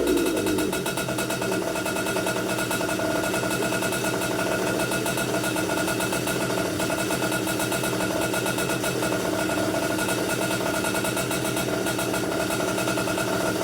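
Komet K30 two-stroke rotary-valve kart engine, fitted with a new stroker crank and piston, idling steadily while the new piston is broken in. In the first half second it drops from a brief rev into the idle.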